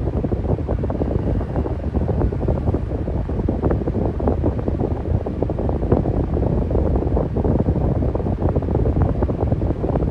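Electric fan running steadily: a constant rush of air, strongest low down, with a fast, unbroken flutter.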